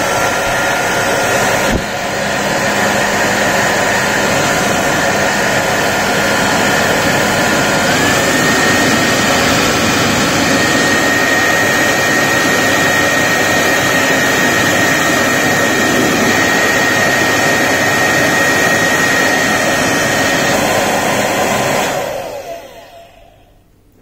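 Remington D3190 ionic hair dryer (2200 W) running: a steady rush of air with a thin motor whine that steps up in pitch about eight seconds in, then winds down and stops near the end as it is switched off. It runs quieter than expected for a dryer this size.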